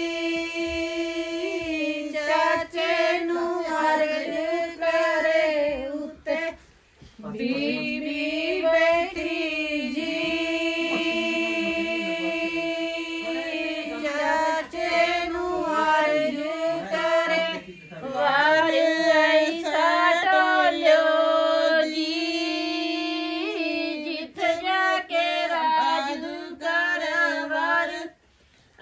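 Group of women singing a Punjabi suhag wedding folk song together, drawing out long held notes, with a short pause about seven seconds in.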